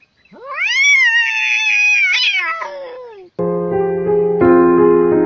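A cat's single long, drawn-out meow that rises, holds and slowly falls in pitch over about three seconds. Piano music starts just after it ends.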